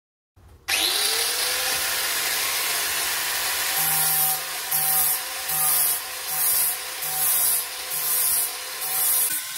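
Angle grinder with a flap disc starting up about half a second in, its whine rising as it spins up and then holding steady. From about four seconds in it grinds down the weld on a steel armour knee cop in repeated passes, the grinding swelling and easing about once a second or a little faster.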